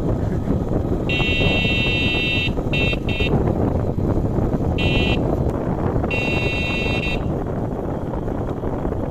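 A vehicle's buzzing electric horn sounds in five bursts: a long one, two quick beeps, a short one, then another long one. Under it runs a steady rumble of wind and road noise.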